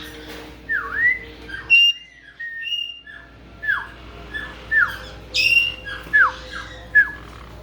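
Caique parrots whistling: a string of about ten short whistles, each sliding down in pitch, with a harsher squawk about five seconds in.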